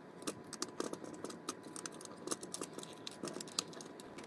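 Light, irregular clicks and scrapes of a small screwdriver working screws out of a mini projector's plastic optics housing, several clicks a second.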